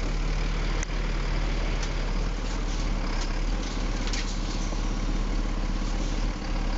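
Heavy truck's diesel engine running steadily at low revs while it manoeuvres, with a few faint clicks over it.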